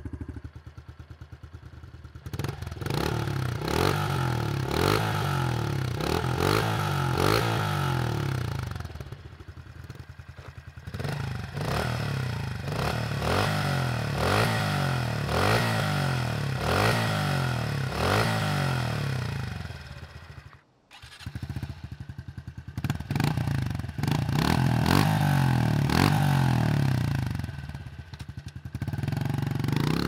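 A 2023 Honda CRF110F's small air-cooled single-cylinder four-stroke idles, then is revved over and over through its stock exhaust, the pitch rising and falling with each blip of the throttle. There is a short break about two-thirds of the way through, and near the end the bike pulls away under load.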